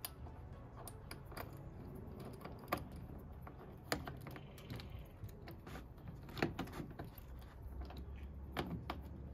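Scattered small clicks and taps of metal mounting hardware being handled and fitted by hand (washer, bolt and knob of a Magma SUP/kayak rack's rail mount), over a faint steady low hum.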